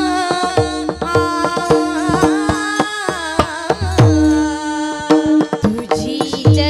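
A woman sings a Marathi Warkari abhang to a held drone note. Taal hand cymbals click in rhythm, and a barrel drum (mridang) plays deep strokes that drop in pitch, about one a second.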